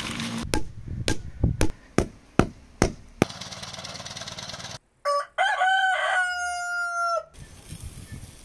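A run of sharp knocks, then a small engine running briefly, then a rooster crowing once, a loud call of about two seconds.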